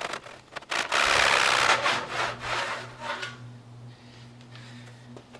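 Old hand log saw rasping lengthwise through a birch log: a long stroke about a second in, lighter rasping after it, then the sawing stops about three seconds in.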